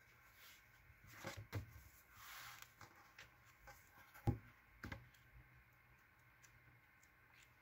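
Thin paperback book handled and opened by hand: a few soft taps and knocks, the sharpest about four seconds in, and a brief rustle of paper.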